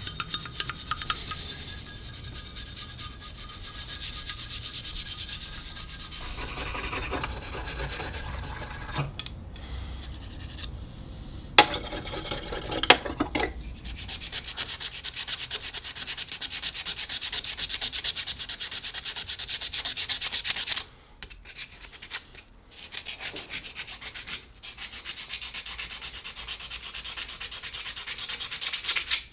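Abrasive scrubbing and sanding on the rusty metal parts of an old clothes iron, in quick repeated strokes. There are a couple of sharp knocks about halfway through and short pauses in the scrubbing later on.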